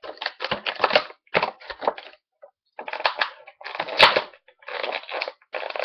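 Stiff clear plastic toy packaging crinkling and crackling as hands work an action figure out of it, with a short lull and one sharper, louder crack about four seconds in.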